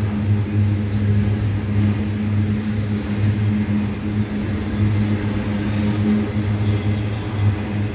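Freight train rolling past, its wagons rumbling over a steady, slightly pulsing low drone.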